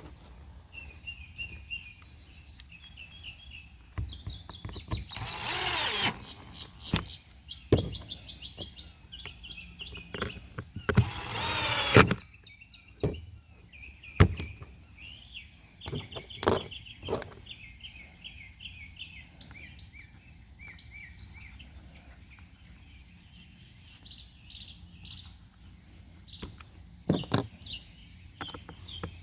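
Small birds chirping over and over in quick runs, with two short whirring bursts and scattered sharp clicks and knocks of work at hand.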